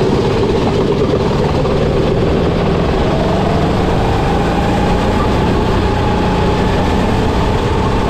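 Sodikart rental kart engine heard onboard, running hard at speed. The pitch dips slightly, then rises from about three seconds in as the kart accelerates, and holds steady.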